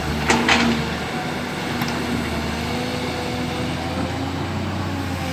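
Heavy construction machine's diesel engine running steadily with a low, even hum. Two short knocks sound about half a second in.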